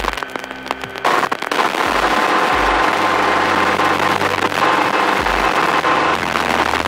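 Schweizer 300 helicopter's piston engine and main rotor running loud inside the cabin, stepping up sharply about a second in as power comes up to lift into a hover.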